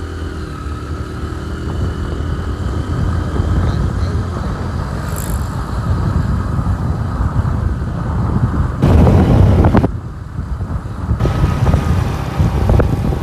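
Motorcycle engine running while riding along a street, with wind rumbling over the microphone, loudest in gusts about nine seconds in and again near the end.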